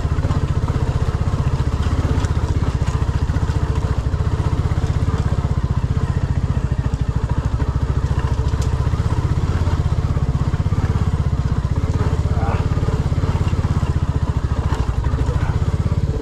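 Royal Enfield Classic 350's single-cylinder engine running steadily, its exhaust pulses coming fast and even, with no marked revving up or down.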